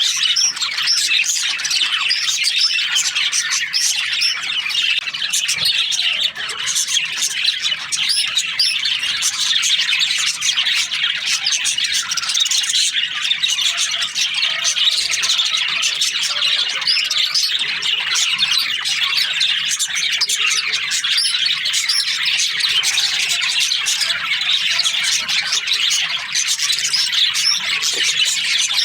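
A colony of budgerigars chattering, many birds chirping and squawking at once in a dense, unbroken chorus.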